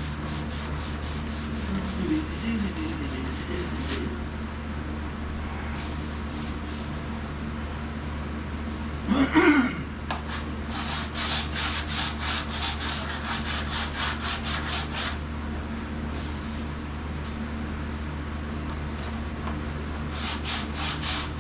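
Hand sanding on a truck's body panel, fast back-and-forth strokes about four a second, in several runs with short pauses. The sanding is done to show up blemishes and low spots in the surface. About halfway through there is one brief, louder sound whose pitch slides.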